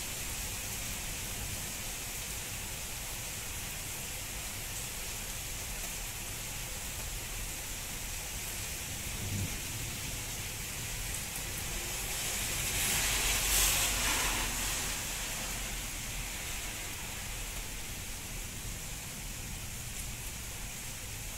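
Steady rain falling, with a louder rush that swells and fades over a few seconds about two-thirds of the way through.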